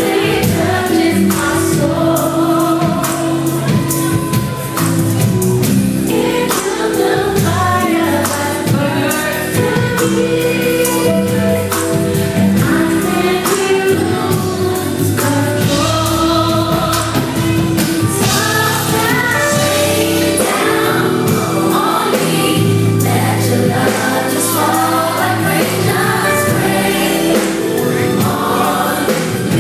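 Female R&B vocal trio singing live in harmony over a live band of keyboards, guitar and drums, heard from the audience.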